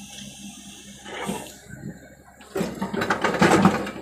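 Excavator bucket dumping a load of soil into a Tata tipper truck's steel bed. A short rush of falling earth comes about a second in, then a louder, longer rush of soil pouring from a little past halfway until near the end. Both sit over the machines' steady engine hum.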